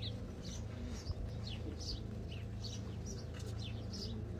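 A small bird chirping over and over in short, high, falling notes, about two or three a second, over a steady low hum.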